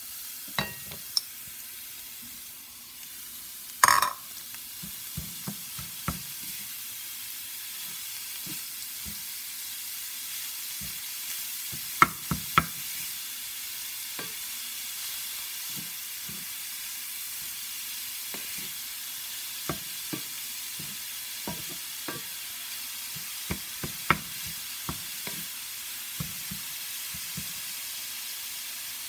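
Grated cauliflower and onions sizzling in butter in a cast-iron skillet while a wooden spatula stirs and turns them, knocking and scraping against the pan now and then. The loudest clatter comes about four seconds in, with two more sharp knocks near the middle.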